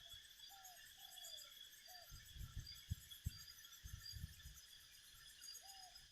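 Faint steady chorus of crickets or similar insects, with a bird calling in short falling notes a few times. A handful of low thumps come about two to four seconds in.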